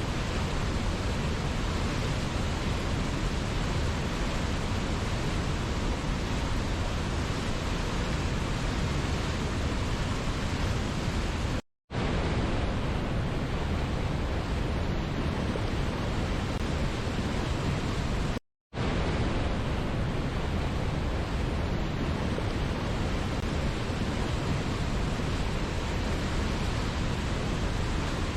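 Steady, even rush of a waterfall's falling water, with no other sound in it. The audio cuts out to silence for a split second twice, about twelve and eighteen and a half seconds in, then resumes at the same level.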